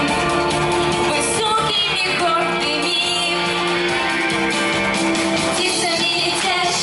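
A rock/pop song with a strummed guitar accompaniment and sung vocals, playing continuously.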